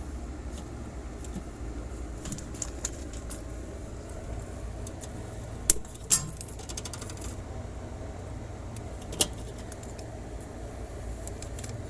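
Scattered small metallic clicks and taps from wire and tools being handled at an electrical box: two sharp clicks a little before the middle, a quick run of small ticks right after, and another sharp click later, over a steady low hum.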